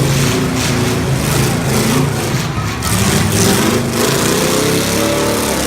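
Engines of full-size demolition-derby cars running and revving, with a rising engine pitch about four seconds in as one car accelerates.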